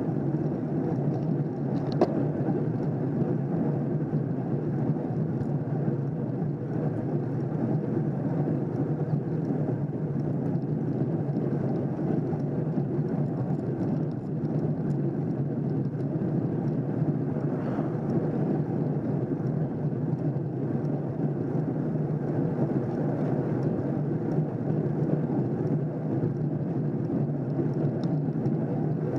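Steady wind and road noise picked up by a rider-mounted camera riding in a pack of road cyclists, with one sharp click about two seconds in.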